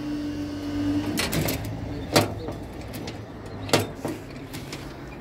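The level crossing's warning tone dies away about a second in. Then the barrier's hinged picket skirt clanks and clicks several times as the barrier lifts and the pickets fold together, over a low steady hum.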